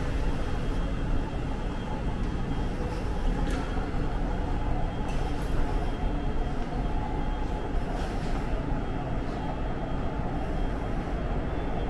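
Seoul subway train running, a steady low noise with a few faint clicks.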